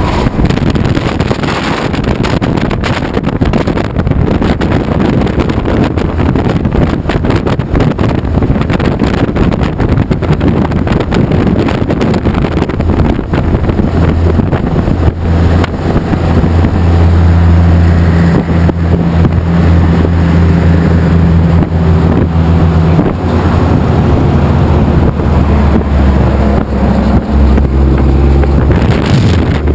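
Steady low engine drone and road rush from an open-top vehicle at highway speed, with wind buffeting the microphone. The drone swells for several seconds midway.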